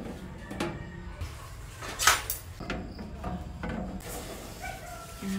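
Metal clatter of an electric oven's wire rack and baking tray being handled inside the cavity, with one sharp clank about two seconds in.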